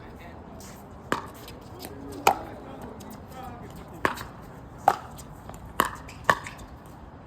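Pickleball rally: paddles hitting the hollow plastic ball in sharp pops, about seven of them at uneven spacing, two coming quickly together near the end in a fast exchange.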